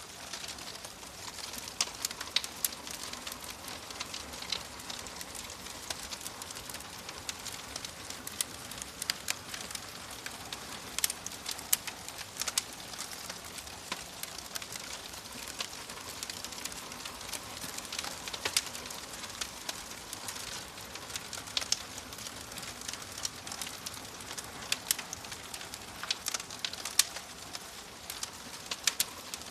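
Fire crackling: a steady hiss with frequent sharp pops and snaps at irregular intervals.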